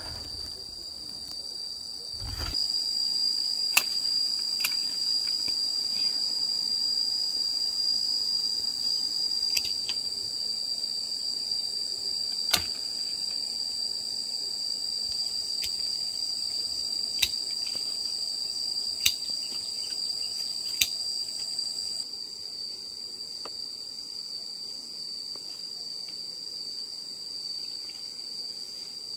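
Steady high-pitched insect chorus of crickets or cicadas, with a second, higher buzz joining about two seconds in and dropping out about 22 seconds in. A handful of sharp clicks sound at irregular intervals.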